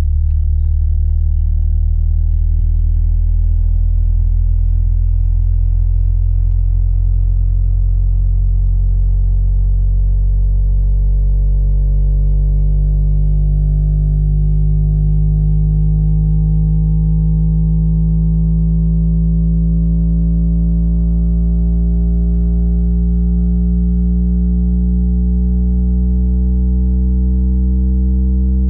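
Yamaha YST-SW030 8-inch subwoofer playing a low bass test tone at a steady, loud level. Fainter overtones above it glide slowly upward in pitch.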